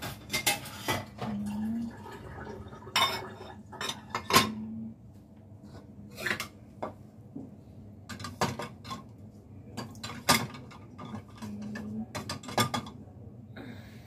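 Ceramic plates and bowls clinking and knocking against each other and the dishwasher's wire racks as they are loaded in one by one. The clinks come irregularly, with short pauses between, and the loudest knocks fall about four seconds in and again about ten seconds in.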